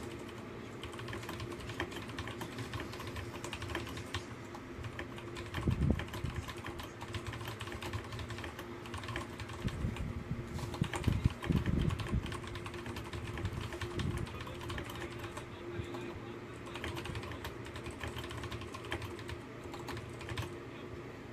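Fast typing on a computer keyboard: a dense, continuous patter of key clicks, with a few louder low thumps about six seconds in and again around eleven to twelve seconds. A faint steady hum lies underneath.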